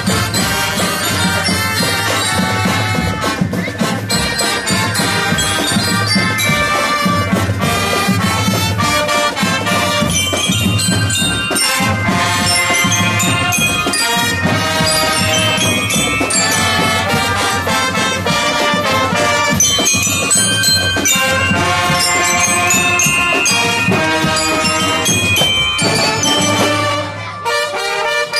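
Marching band playing with trombones and trumpets carrying the tune over a steady rhythm. The music drops briefly near the end.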